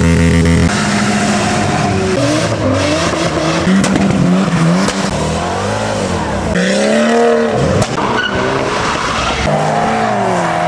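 Supercar and modified car engines revving and accelerating, the engine pitch sweeping up and down, in a run of short clips that cut abruptly from one car to the next every one to four seconds.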